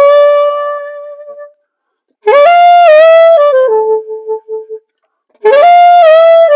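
Solo saxophone playing short, similar phrases separated by silences: one phrase fades out about a second and a half in, another plays from about two seconds to nearly five, and a third begins near the end.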